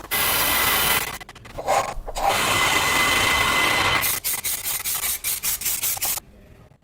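Abrasive work on an old camping stove. Two long runs of loud rasping with a steady high whine are followed by a quick series of short rasping strokes, and it stops about six seconds in.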